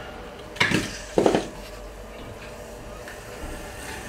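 Grundfos Alpha HWR hot water recirculation pump running with a low steady hum, two short knocks about half a second apart near the start, the second a quick rattle. Typical of the pump just filled with water and still purging air from the line.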